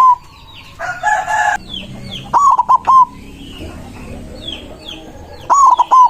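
White zebra dove (perkutut) singing its fast staccato cooing phrase twice, about three seconds apart. A brief harsher call sounds about a second in, and small birds chirp faintly throughout.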